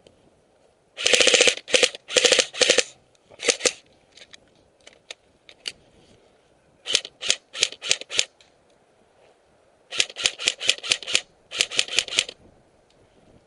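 Airsoft gun firing close by in several strings of rapid shots, with pauses of a few seconds between them. Some strings run together fast, others are separate quick shots.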